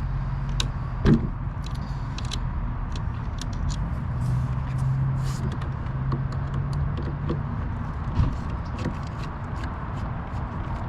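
Small clicks, ticks and scrapes of hand tools and parts being worked on a stand-up jet ski's handlebar switch, with two sharp knocks, a loud one about a second in and another near the end, over a steady low hum.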